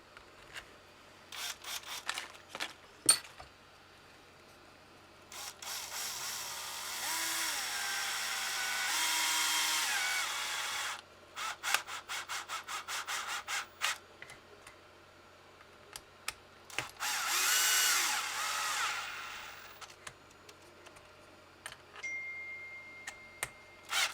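Electric screwdriver driving screws into a hinge pin block on an RC truck. It runs for about five seconds with its motor whine rising and falling, then gives a quick string of clicks, then runs again briefly a few seconds later. A few handling clicks come before the first run.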